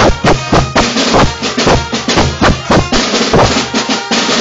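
Carnival drum band beating a steady quick rhythm on a big bass drum and other drums, loud and harsh as picked up by a mobile phone's microphone.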